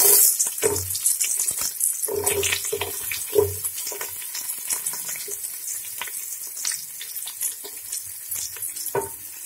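Sliced onions sizzling in hot ghee and coconut oil in a metal pot. The hiss is loudest just as they go in and then settles. A wooden spatula scrapes and knocks against the pot as they are stirred.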